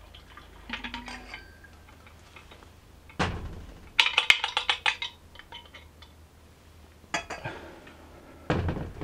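Metal clinking and knocks as a metal fuel bottle and the brass fuel tank of a Coleman kerosene lamp are handled after filling: a knock about three seconds in, then a quick run of metallic clinks, and a heavier thump near the end.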